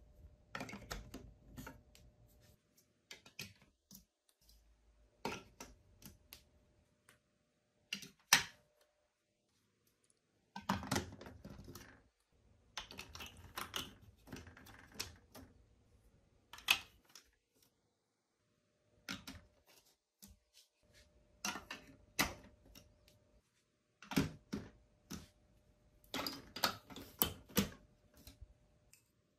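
Large plastic building blocks and marble-run track pieces being handled and pressed together: bursts of clicking and clattering, with brief pauses between them. The sharpest snap comes about eight seconds in.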